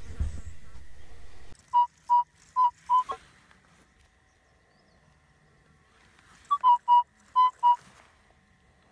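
Minelab E-Trac metal detector sounding short, high beeps all at one pitch as the coil sweeps over a buried target. There are two groups of about five beeps, a few seconds apart, and the steady, repeatable tone marks a good target. A low rumble of handling noise comes just before the first beeps.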